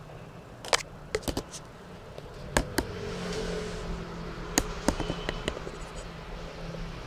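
A scattered series of sharp clicks and taps, a dozen or so at uneven intervals, over a steady low hum.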